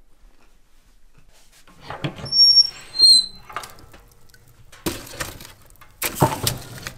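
A few short, high squeaks, then knocking and scraping as a piece of firewood is laid on the glowing coals in an open wood stove firebox.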